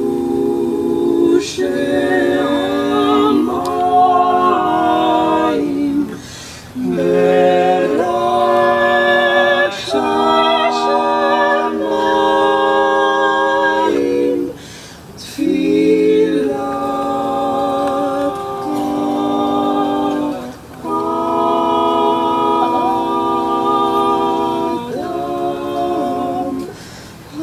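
Unaccompanied singing with no instruments, sung in long held phrases separated by brief pauses.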